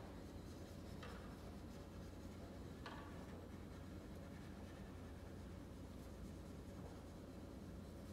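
Bass viols da gamba played with extended techniques: quiet, scratchy bow noise rather than clear notes, with a couple of brief scratches about one and three seconds in.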